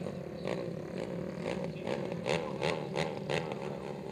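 Several racing quad ATV engines running at high revs, their pitch rising and falling as the throttles open and close, with short sharp cracks every half second or so.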